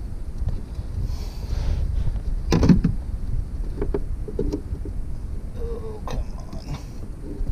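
Wind buffeting the microphone with a steady low rumble, and a few knocks and clunks on a plastic fishing kayak, the loudest one about two and a half seconds in.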